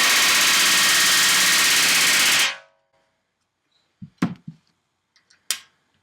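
Pneumatic rivet gun hammering in one loud, rapid burst of about two and a half seconds while setting an aluminium rivet in the stabilizer skin, followed by a few light clicks and knocks of tools on metal.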